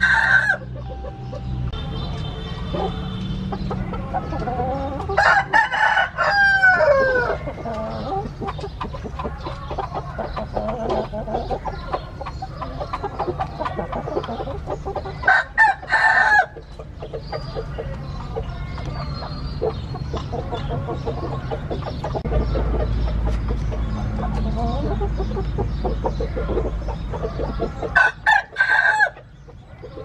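Gamefowl roosters crowing several times, loudest about five seconds in, mid-way and near the end, with quieter clucking and calling in between. A low steady rumble joins in the second half.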